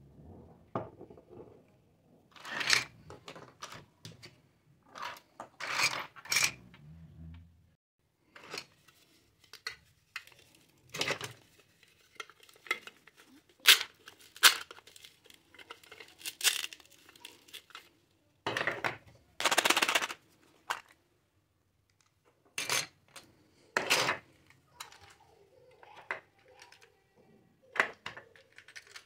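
Small plastic toy kitchen pieces being handled, clicking and clattering against each other and the table in scattered sharp knocks, with a few longer scraping sounds, one of them about two-thirds of the way through, as a toy cake's plastic slices are fitted together.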